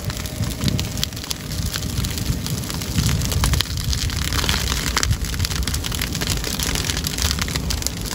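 Dry grass burning: dense, irregular crackling and popping of the flames over a steady low rumble.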